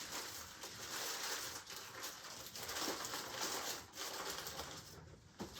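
Rustling and crinkling of plastic and paper packaging as used tracheostomy care kit supplies are gathered up for the bin.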